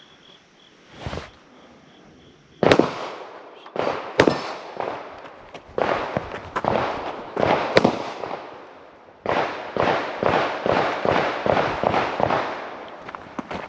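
Pistol shots on a range: a first loud shot about three seconds in, several more spaced out over the next few seconds, then a fast string of shots near the end.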